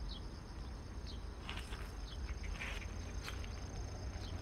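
Garden ambience: a steady high insect trill, typical of crickets, with a few short chirps around the middle and a low rumble underneath.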